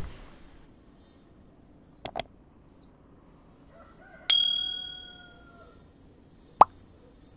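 Subscribe-animation sound effects: a quick double mouse click, then a bell ding that rings out and fades over about a second and a half, and a single sharp click near the end.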